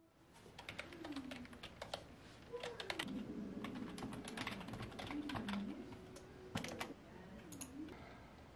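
Typing on a computer keyboard: runs of quick key clicks with short pauses between them, over a low tone that wavers up and down.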